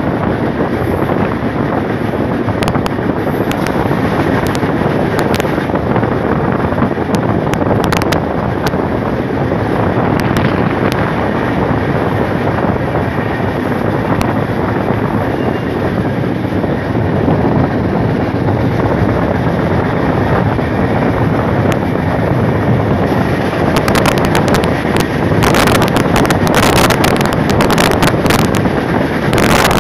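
Fast-running express train heard from its open doorway: a steady rush of wind on the microphone over the rumble of wheels on the rails. From about 23 seconds in, a quick run of sharp clicks and clatter from the wheels joins in while a suburban local train runs alongside.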